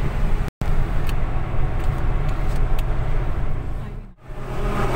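Car cabin noise at highway speed: a steady low rumble of engine and tyres on the road. It cuts out for an instant about half a second in and dips briefly near the end.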